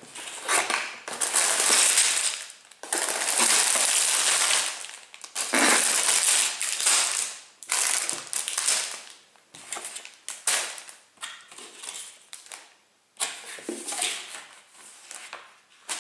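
Cardboard Lego box being opened, then plastic bags of Lego bricks crinkling and rattling as they are lifted out. The crinkling comes in long stretches over the first half, then in shorter bursts.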